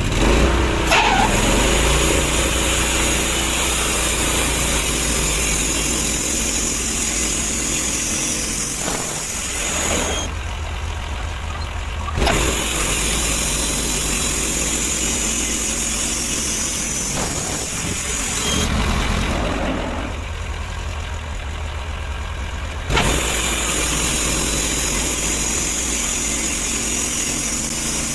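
Sawmill engine running steadily, with a high hiss over it that stops twice for a few seconds.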